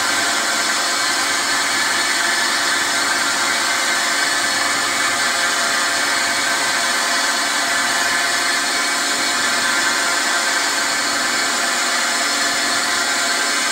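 Milling machine spindle running steadily, spinning a wiggler edge finder, a continuous machine whir with many fixed tones.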